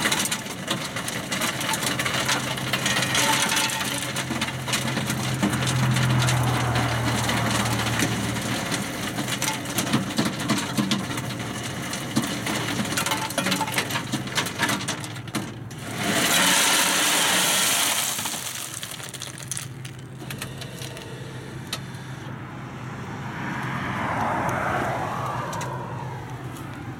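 Ice vending machine dispensing loose ice cubes nonstop: a steady motor hum under continuous clattering of cubes dropping into the metal chute, with a loud rush of noise lasting about two seconds partway through. The machine is malfunctioning, spilling loose ice instead of vending a bag.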